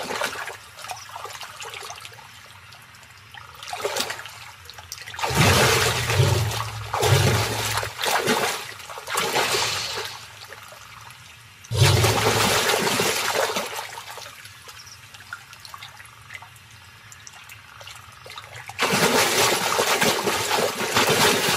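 Water splashing and churning as Nile crocodiles thrash and lunge in shallow river water. There are three loud bouts of splashing, about five seconds in, about twelve seconds in and near the end, with quieter trickling between them.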